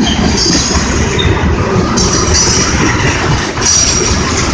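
Freight train tank cars rolling past close by: a loud, steady rumble and clatter of steel wheels on the rails, with brief high squeals from the wheels now and then.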